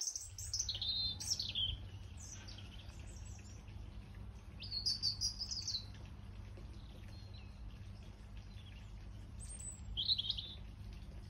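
Garden songbirds singing in short spells of quick, high chirps: one at the start, another about five seconds in, and a last one near the end, over a faint steady low hum.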